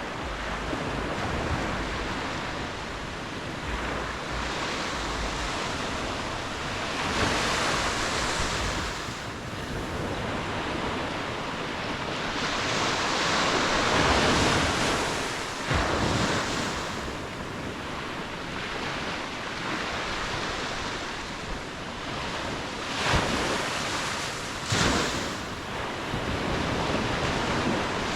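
Ocean waves breaking and washing in, the surf swelling and easing several times, with two sharper splashes near the end. Wind rumbles on the microphone underneath.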